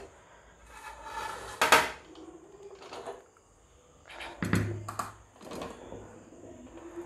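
Steel slotted ladle and spatula scraping and clinking against an aluminium pressure cooker as cooked rice is scooped and turned, with a few sharp metal knocks, the loudest about two seconds in and another cluster near the middle to end.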